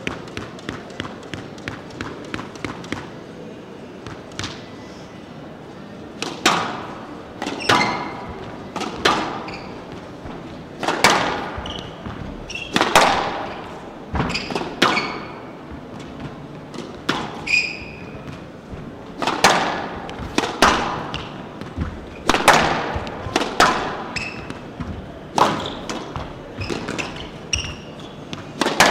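Squash rally: sharp cracks of racket on ball and ball on the walls, about one every second or so, each with a short echoing tail, with short high shoe squeaks on the court floor between them. It opens with a run of quick light taps, the ball being bounced before the serve.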